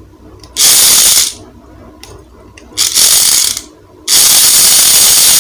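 Small electric drive motor and plastic gears of a vintage 1:24 one-channel radio-control toy car whirring in three bursts as the remote's button is pressed, the third the longest. It is running again now that its rusted battery terminals have been scraped clean.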